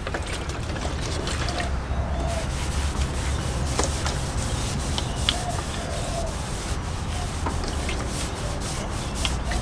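A cloth wiping wax and grease remover over a freshly sanded sheet-metal body panel, a steady rubbing with a low hum underneath.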